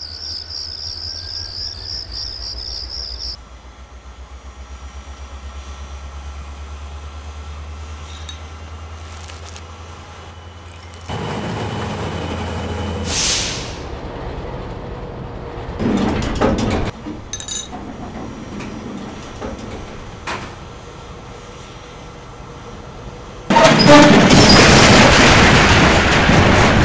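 Film sound effects of a diesel locomotive attacking an engine shed: a low, steady engine throb with a regular beat, broken by metal clanks and knocks partway through, then a loud, long crash of a collapsing building near the end.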